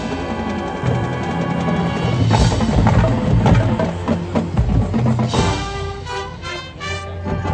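Marching band playing its field show: sustained brass chords over marching drums and front-ensemble percussion, with loud accented hits about two and a half and five seconds in.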